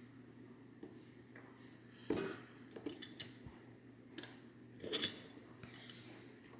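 Lock pick and tension wrench working the pins of a Mul-T-Lock Classic cylinder: faint scattered metallic clicks and scrapes, with louder clicks about two seconds in and about five seconds in.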